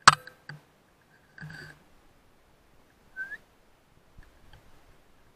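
.177 PCP air rifle firing: one sharp, loud shot, followed about half a second later by a fainter knock. A short noisy burst comes about a second later, and a brief rising whistle-like chirp about three seconds in.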